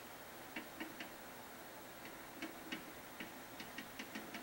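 Chalk clicking and tapping against a blackboard while a formula is written: faint, irregular ticks, a few at first and a quicker run from about halfway on.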